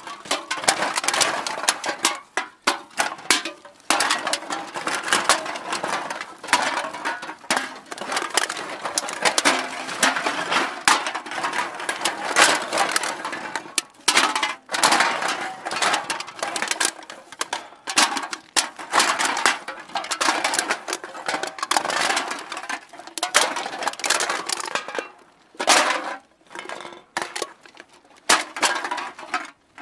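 Cans being put into a bag, clattering and clinking against one another in a dense, irregular run, with a few short pauses.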